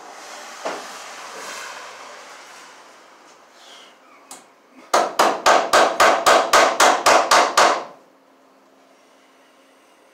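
A hammer rapidly driving a cable staple into a wooden stud: about a dozen quick, evenly spaced blows, about four a second, preceded by rustling.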